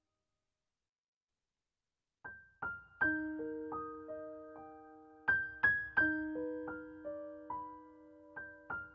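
Background music: silence for about two seconds, then a slow, sparse solo piano melody begins, single notes fading over held lower notes.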